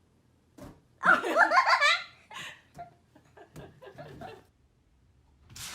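A person laughing: a loud burst about a second in, trailing off into shorter, quieter bits of laughter.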